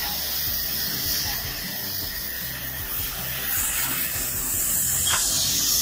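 Pressure-washer jet hissing steadily as it sprays water onto a motorcycle; the hiss grows sharper about three and a half seconds in.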